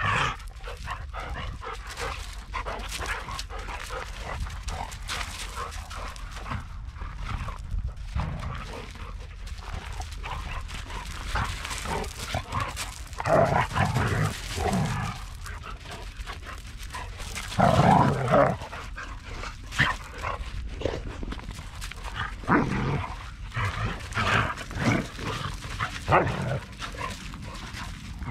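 Dogs barking and yipping in repeated bursts, loudest about halfway through and again in a cluster near the end.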